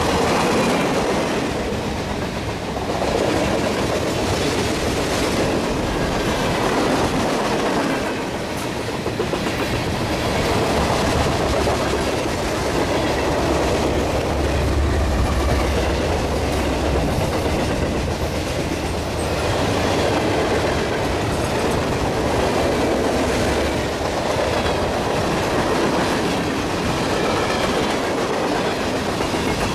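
Canadian National freight train passing close by, its cars' wheels running over the rails in a continuous loud rush. About halfway through, a mid-train diesel locomotive (a distributed power unit) goes by, and its engine's low rumble is strongest then.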